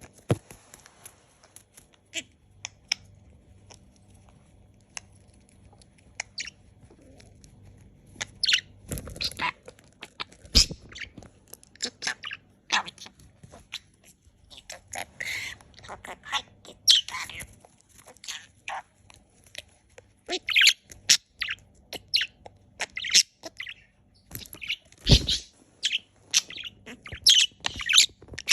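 A pet parakeet chirping and squawking excitedly in short sharp calls, sparse at first and coming thick and fast from about eight seconds in. A few low thuds break in around nine, ten and twenty-five seconds.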